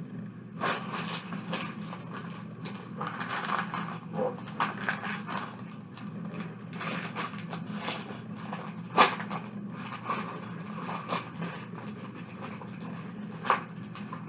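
Small plastic toy trucks being pushed and knocked about in a plastic bin of sensory sand: scraping and rubbing with scattered clicks and knocks, the sharpest about nine seconds in, over a steady low hum.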